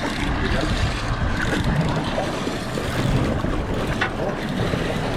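Steady rumble of a small offshore fishing boat at sea, with wind buffeting the microphone.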